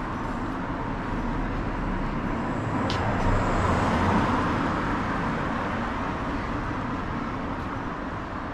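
City street traffic noise, a steady hum of passing cars, swelling as a car drives past close by about three to four seconds in, with a single sharp click at the same moment.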